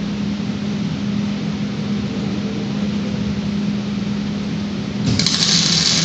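A steady low machine hum, then about five seconds in the automated welding torch strikes an arc and crackles loudly for about a second as it lays a short weld on the steel stand frame.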